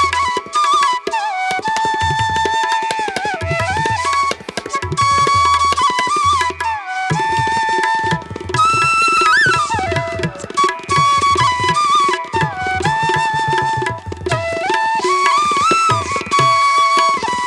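Background music: a flute melody with gliding, ornamented notes over tabla drumming in an Indian classical style.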